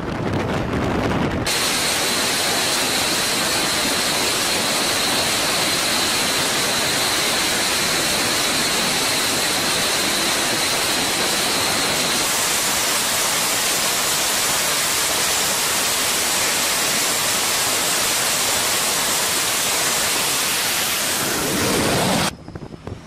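Jet fighter engines running at high power: a steady loud roar with a high turbine whine, the whine jumping to a higher pitch about halfway through. The sound cuts off suddenly near the end.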